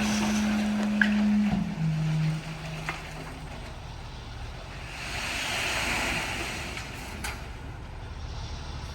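Dump truck engine running at raised revs with a steady hum that drops in pitch about a second and a half in and fades soon after. A rushing noise swells and fades near the middle.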